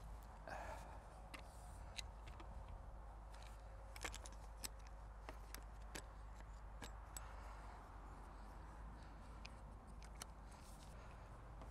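Faint, scattered clicks and light knocks of antique wooden tripod legs with metal hinge fittings being handled and clipped onto the tripod's wooden top, with a couple of sharper clicks about four seconds in.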